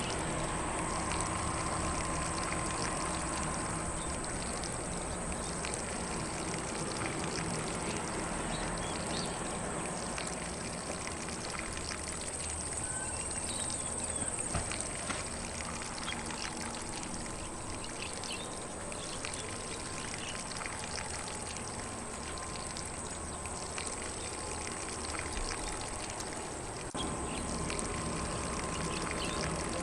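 Lawn sprinkler spraying water steadily across grass, with faint, scattered bird chirps in the background.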